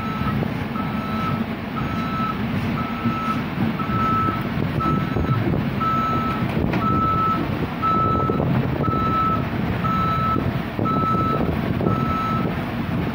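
Travel alarm of a CAT tracked excavator beeping at one steady pitch about once a second as the machine drives, over its running engine and the rumble of its tracks; the beeps stop shortly before the end.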